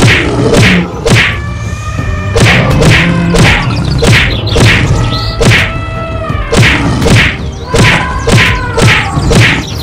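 Cartoon fight sound effects: a steady run of whacks and thuds, about two a second, with animal calls that bend in pitch between the blows.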